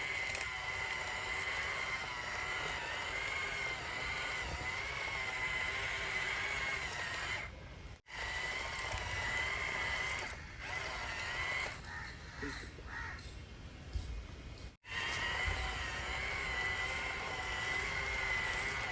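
Small electric motor and plastic gearbox of a toy remote-control crane whining steadily at a high pitch that wavers slightly. It cuts out abruptly twice and runs more weakly in between.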